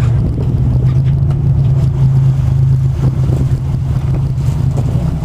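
Sport-fishing boat's engine running steadily, a low even hum.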